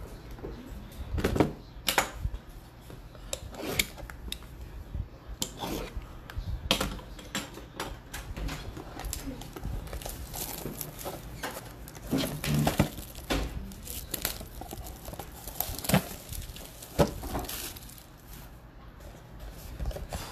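Cardboard trading-card boxes and plastic card holders being handled and set down on a table: a string of irregular knocks, scrapes and packaging rustles, a few sharper knocks near the start and about three-quarters of the way through.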